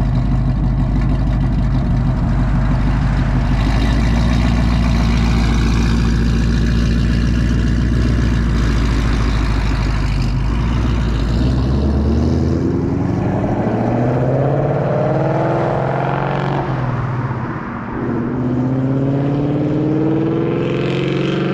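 2019 Ford Mustang GT's 5.0 L V8 running through Kooks headers and a Borla ATAK cat-back exhaust, holding a steady low note, then revving up with rising pitch. The note drops briefly about three-quarters of the way in, then climbs again.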